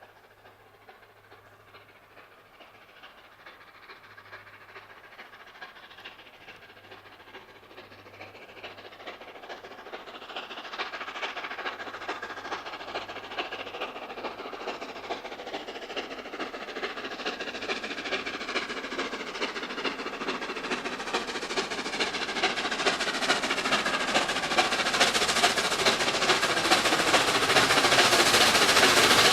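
The three-cylinder steam locomotive LNER A3 60103 Flying Scotsman, working hard up a steep gradient. Its regular exhaust beats grow steadily louder as it draws near.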